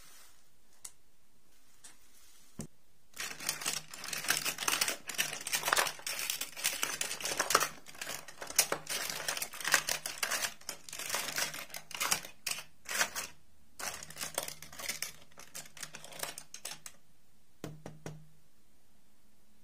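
Small plastic dolls and their plastic dresses clattering and clicking against each other and the wooden box as hands rummage through them. It is a dense run of light clicks and rattles that starts about three seconds in and stops shortly before the end, with a couple of clicks just after.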